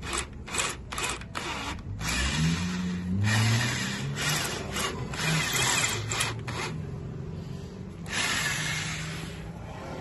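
Electric drill boring out a stripped bolt in a motorcycle front fork leg, the bit grinding into the metal. It runs in several short bursts at first, then in longer runs with a brief lull.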